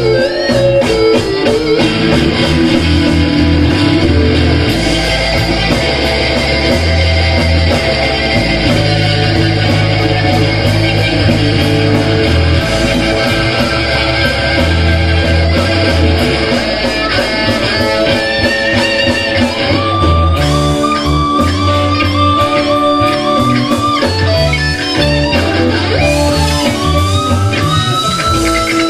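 Live rock-blues band jamming: electric guitars, bass guitar and drum kit playing together. In the second half a lead guitar holds long, wavering notes over the steady bass line.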